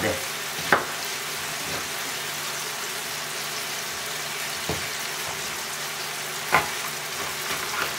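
Sliced mushrooms and onion frying in oil in a pan, a steady sizzle, with three sharp knocks of a knife chopping peppers on a wooden cutting board.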